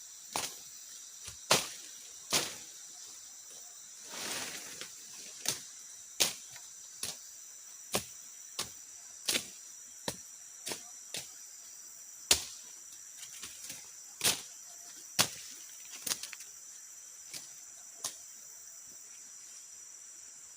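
A steady high insect drone, such as crickets or cicadas, with sharp irregular knocks every second or so, some much louder than others. A brief swish comes about four seconds in.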